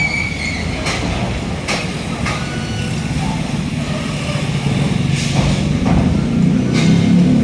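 Heavy road traffic on a busy city boulevard: a steady engine rumble that gets louder near the end as a vehicle draws close, with a few short knocks and a brief high squeal right at the start.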